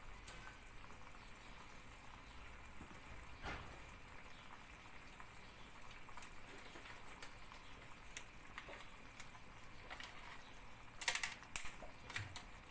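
Milk pudding heating in a pot on a gas burner as it thickens toward the boil, giving faint, sparse pops and ticks. A short burst of louder crinkling near the end as a margarine wrapper is handled.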